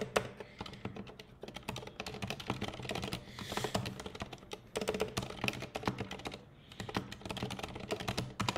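Typing on a computer keyboard: quick runs of keystrokes with short pauses between them, including a brief gap about six and a half seconds in.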